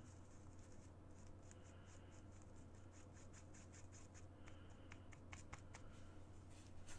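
Faint, rhythmic scratching of a paintbrush working paint on a paper-plate palette, about four strokes a second, followed by a few light clicks in the second half. A low steady hum runs underneath.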